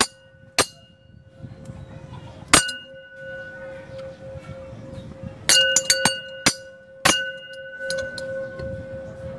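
A small bell-like chime struck repeatedly, each sharp strike ringing on with a steady tone: a single strike near the start, another about two and a half seconds in, then a cluster of several strikes a few seconds later. It serves as the conditioning cue for a pet mouse.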